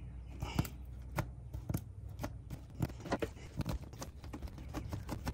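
Hand primer pump on the LBZ Duramax fuel filter head being pushed down over and over, a short click about twice a second, bleeding air out of the diesel fuel system after a new filter was fitted dry.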